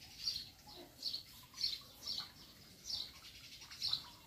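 A bird chirping repeatedly, short high chirps about two a second.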